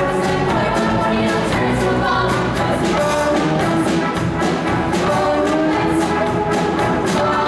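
Show choir of women's voices singing an up-tempo number over band accompaniment, with a steady quick drum beat of about four strokes a second.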